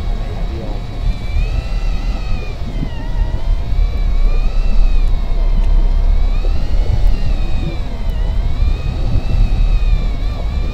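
Electric deep-drop fishing reel's motor winding in line, a whine that slowly rises and falls in pitch every couple of seconds, over a steady low rumble.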